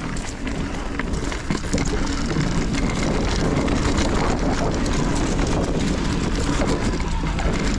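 Mountain bike descending fast over rough dirt: tyre noise and the rattle of the bike over the trail, mixed with wind on the microphone, getting louder about two seconds in.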